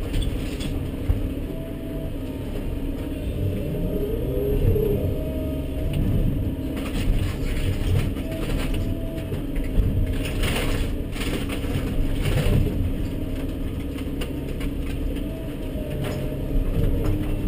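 Volvo 140BL tracked excavator heard from inside its cab: the diesel engine runs steadily with a hydraulic whine that comes and goes. The bucket tears into a rotten wooden barn frame, and splintering boards crack and crash several times, most sharply in the middle stretch.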